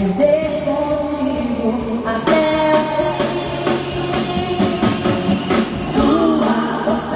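Live band playing a pop song with singing over drums, electric guitar and keyboard during a soundcheck. The sound fills out about two seconds in.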